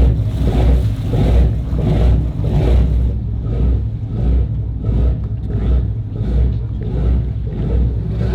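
Boat engines running steadily under way: a low, even engine drone with a rushing hiss of water and wind over it that swells and fades about twice a second.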